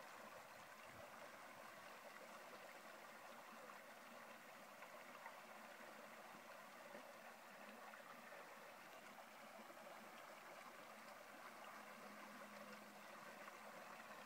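Faint, steady rush of shallow creek water flowing over a gravel bed.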